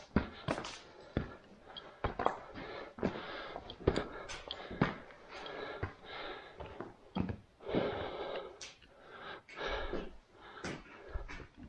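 A person breathing heavily close to the microphone, a breath every second or two, with scattered footsteps and knocks on loose rock.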